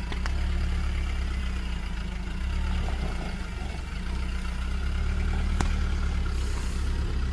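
Vehicle engine running steadily with a low rumble, and a couple of short sharp clicks or knocks over it.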